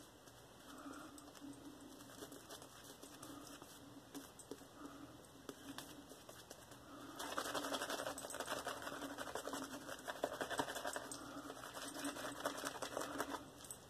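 Omega Pro shaving brush working wet lather, with a soft, rhythmic swishing at first, then a louder, denser wet crackle from about seven seconds in until just before the end.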